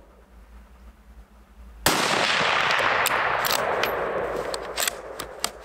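A single rifle shot from a Tikka T3x CTR in .223 about two seconds in, its sound trailing off slowly over about three seconds. Several sharp clicks follow as the bolt is worked.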